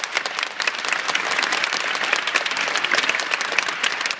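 Large stadium crowd applauding steadily after a farewell speech, with sharp individual claps from people close by.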